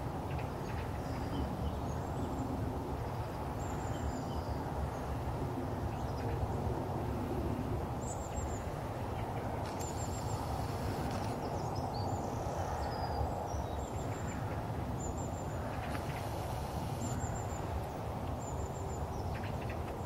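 Outdoor farmyard ambience: a steady low rumble with short, high bird chirps recurring every second or two.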